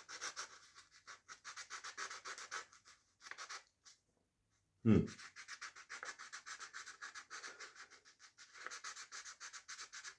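Fine sandpaper scrubbing back and forth on the copper commutator of an electric motor armature, a rapid scratchy rasp. It pauses for about a second, a brief louder knock follows about five seconds in, and the rubbing starts again.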